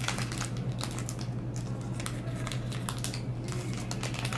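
The shiny foil wrapper of a baseball card pack crinkling as it is pulled open and the cards slid out: a string of short crackles and rustles. A steady low hum runs underneath.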